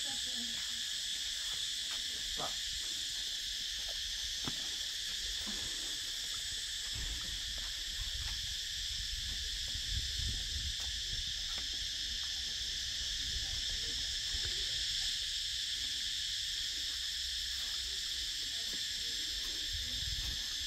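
Steady, high-pitched chorus of insects droning without a break. A low rumble swells and fades near the middle.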